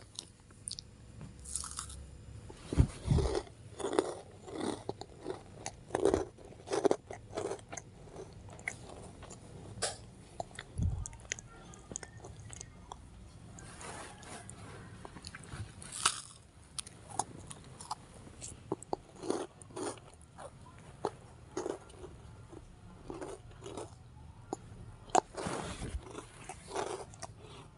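Crunchy chewing: irregular bites and crunches, several close together, then short pauses.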